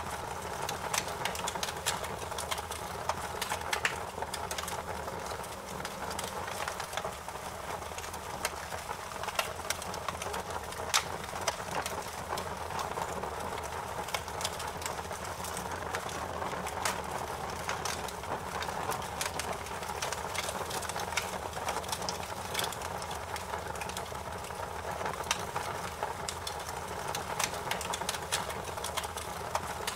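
Wood fire crackling, with irregular sharp pops and snaps over a steady low rushing hiss of the flames.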